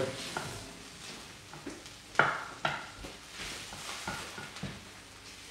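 Wooden spoon stirring broccoli, mushrooms and onions in a steel frying pan, over a faint sizzle of frying. The spoon knocks and scrapes against the pan about six times, loudest a little after two seconds in.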